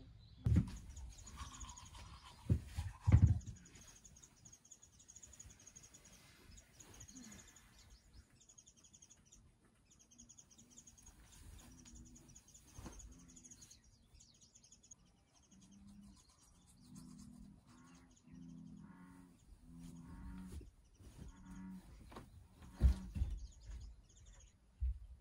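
Small birds chirping in quick repeated phrases, broken by a few loud thumps and knocks near the start and near the end. Short low-pitched sounds come and go in the later part.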